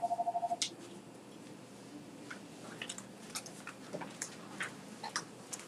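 A rapid electronic two-tone trill, pulsing about ten times a second, that cuts off about half a second in. Then only faint scattered clicks and taps.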